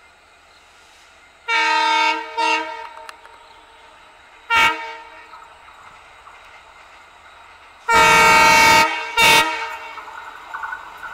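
Diesel locomotive horn: a long blast followed by a short one, a single short toot, then another long blast and a short one. Near the end the rumble and clatter of an approaching train grows.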